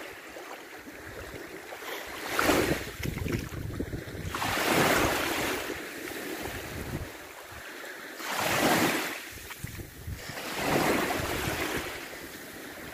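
Small sea waves breaking and washing onto a shallow shore. The surf swells up about four times, every two to three seconds, with wind rumbling on the microphone underneath.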